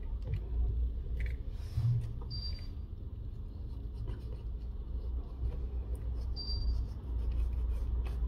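Plastic opening pick sliding and scraping along the edge of a Google Pixel 4 XL's glass back cover, cutting through heat-softened adhesive: faint scratching and light ticks over a low rumble, with two brief high squeaks about four seconds apart.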